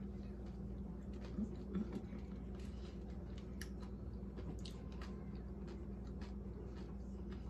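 Faint chewing of a taco, with soft wet mouth clicks at uneven intervals over a steady low hum, and two short low sounds about one and a half seconds in.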